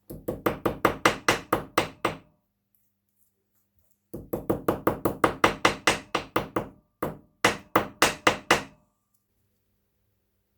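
Quick, evenly paced hammer taps, about five or six a second, in three runs with short pauses between.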